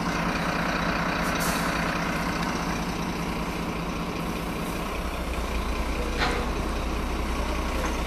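Heavy truck engine running with a steady low rumble that grows stronger about five seconds in. A brief hiss comes about six seconds in.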